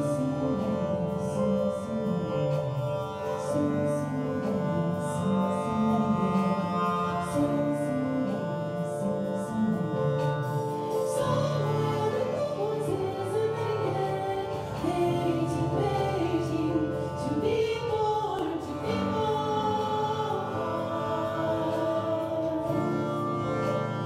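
Live music: a long-string harp's strings give sustained, ringing drone tones while a woman's operatic voice sings a gliding melody over them, moving higher from about halfway through.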